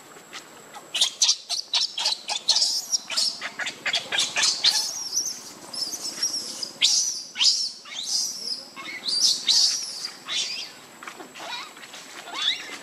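Baby macaque screaming in distress, a rapid run of short, high-pitched shrieks and squeals starting about a second in, with a few rising-and-falling wails near the end, as it is left lying alone on the ground by its mother.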